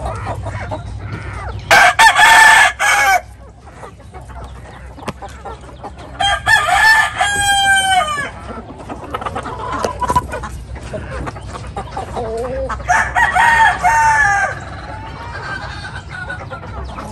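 Rooster crowing three times, each crow about a second and a half long and roughly five seconds apart, with hens clucking in between.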